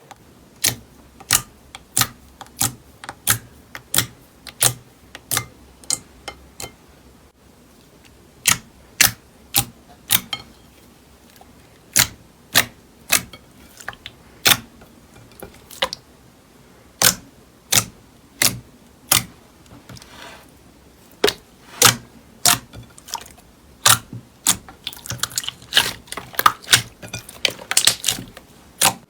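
Slime being pressed and poked, giving sharp popping clicks, mostly about two a second, that turn into a quicker flurry near the end.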